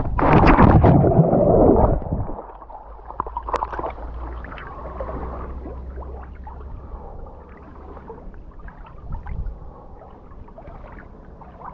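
Pool water splashing and sloshing around a camera held at the water's surface. A loud rush of water for about the first two seconds, then quieter lapping and gurgling.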